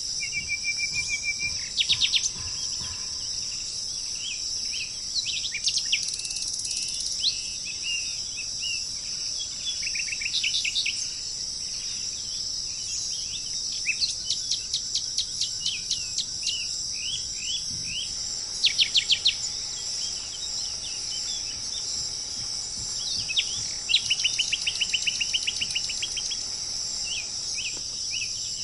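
Birds calling in quick series of short, sharp chirps and fast trills, over a steady high-pitched insect drone.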